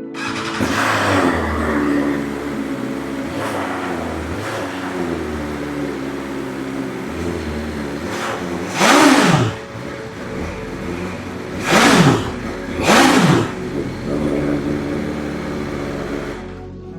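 BMW S1000XR inline-four motorcycle engine with an Akrapovic exhaust running and accelerating. Three short, much louder surges come in the second half.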